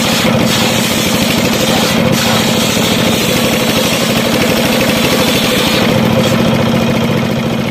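Sawmill circular saw blade driven by a 24 hp diesel engine, ripping a mahogany board: the diesel runs steadily with a fast, even pulse under the hiss of the blade in the wood. The cutting hiss fades about six seconds in while the engine runs on.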